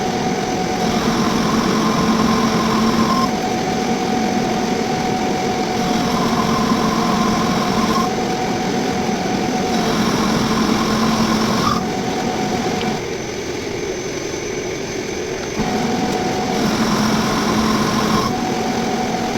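Metal lathe running under a cut, a carbide-insert turning tool taking metal off a bulldozer roller about ten inches across at roughly 150 RPM. The sound is steady, with a few whining tones that come and go every two or three seconds as the cut changes.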